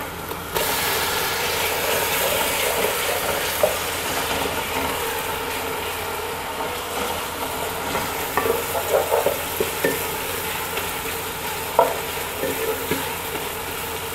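Chopped tomatoes go into hot oil with fried onions and ginger-garlic paste in an aluminium pot: the sizzle jumps up about half a second in, then settles into a steady sizzle that slowly eases off. A wooden spatula stirs through it with a few scrapes against the pot.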